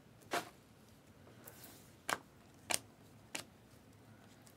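Trading-card packs and cards being handled and opened: four sharp clicks at uneven spacing, with a faint rustle between the first two.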